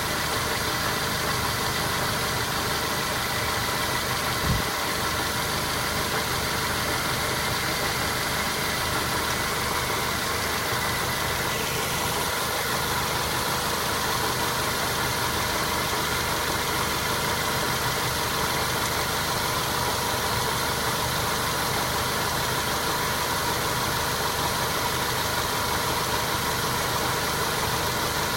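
Mazda 3 with an automatic transmission, running steadily, with the gearbox noise the owner was chasing: a knock that comes on when coasting and goes away when the accelerator is pressed. A single low thump about four and a half seconds in.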